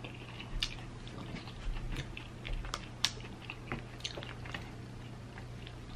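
Close-up chewing, with scattered small clicks and crackles as king crab legs are handled and their shells worked apart.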